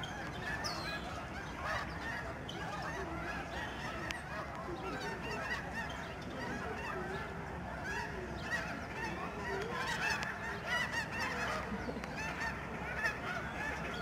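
A large flock of lesser snow geese honking continuously, many calls overlapping into a dense chorus.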